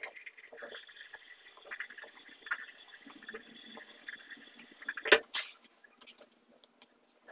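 Bathroom sink tap running, with small splashes of water as hands wash the face. About five seconds in there is one sharp knock, the loudest sound, and after it the running water is no longer heard.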